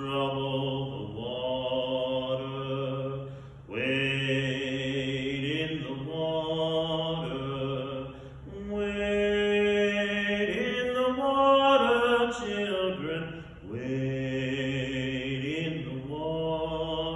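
A man singing a hymn solo in slow phrases of long, held notes.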